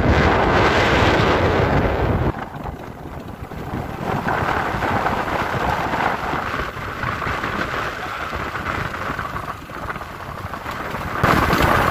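Wind rushing over the microphone of a moving vehicle, mixed with road noise. It is loud for about the first two seconds, drops suddenly to a lower rush, and rises again near the end.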